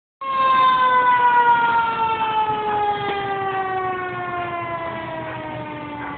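Fire engine siren sounding one long tone that slowly winds down in pitch.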